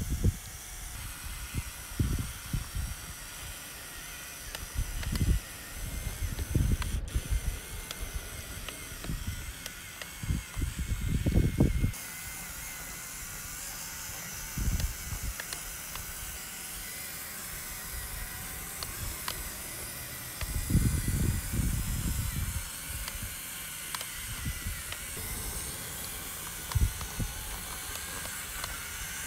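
Radio-controlled off-road truck's small electric motor and gears running as it crawls through mud, heard as a steady high hiss with irregular low rumbles.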